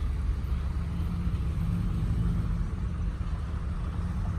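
Outboard engine of a passing motorboat running steadily, heard as a low hum over a rumble.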